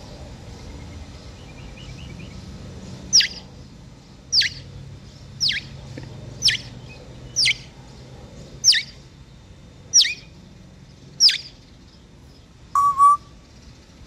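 African grey parrot giving eight sharp, downward-sliding whistles about a second apart, imitating the song of a ruiseñor it hears nearby. Near the end comes a shorter, lower two-part note.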